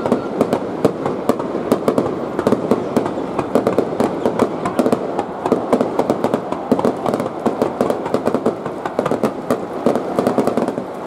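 Aerial fireworks barrage going off continuously: dense crackling and popping, many small reports a second, over a steady rumbling wash.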